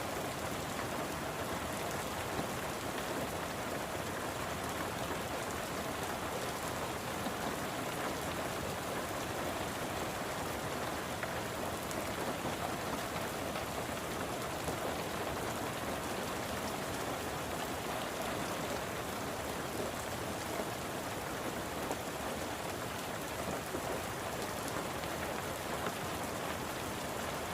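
Steady rain falling, an even wash of noise with scattered sharper drop ticks, during flooding.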